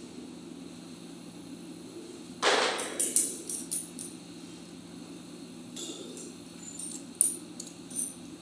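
Metal parts and tools clinking and tapping over a steady low hum, with a louder clatter about two and a half seconds in and scattered light clinks after it.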